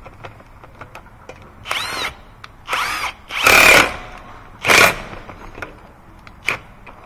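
A power tool with a socket spinning lug nuts down onto a car wheel, in a series of short bursts. The loudest burst comes about three and a half seconds in, and the last is a brief blip near the end.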